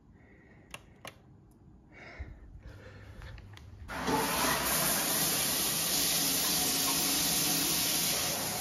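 A few faint clicks, then about four seconds in a wall shower mixer is turned on and the shower starts running, a loud steady rush of water in a small tiled room.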